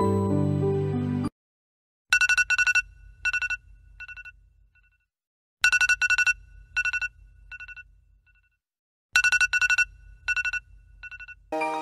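Music cuts off about a second in, and after a brief silence a high ringing signal sounds three times, about three and a half seconds apart. Each ring is a quick run of strokes on two fixed pitches that fades away.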